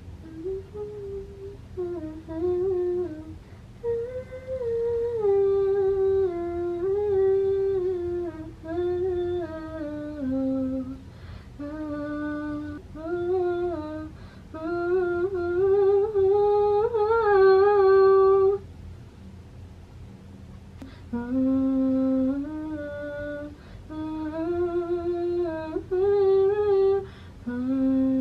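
A woman humming a wordless melody into a studio microphone, trying out a vocal line in short held phrases that step up and down; it breaks off for about two seconds past the middle before she starts again.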